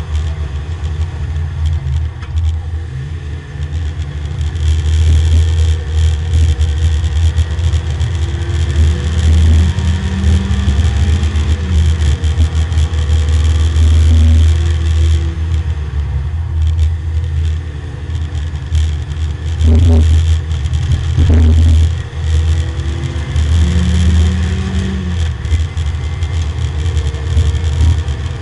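Porsche 924 race car's engine at speed on track, heard loud from inside the stripped cabin, its revs climbing and dropping several times through gear changes and braking.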